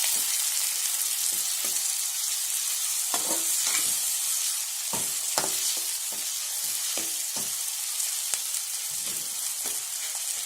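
Chopped tomatoes and onions sizzling in hot oil in a pan with a steady high hiss. A utensil stirs them, scraping against the pan in short, irregular strokes.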